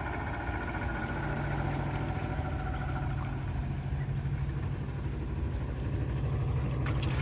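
An engine running steadily with a low, even hum that gets a little louder about a second in.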